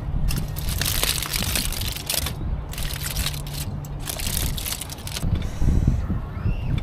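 Aluminium foil crinkling as it is pulled open from around a plate of food, in irregular bursts for about five seconds before dying down. A steady low rumble runs underneath.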